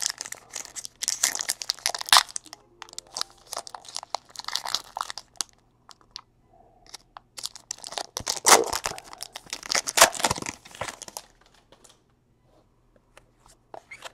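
Foil wrapper of a trading card pack being torn open and crinkled by hand, in two bouts of crackling, the second starting about eight seconds in. It dies down to a few faint clicks near the end.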